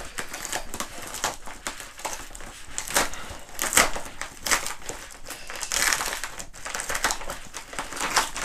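Plastic bubble-wrap mailer crinkling and crackling in irregular bursts as hands work it open.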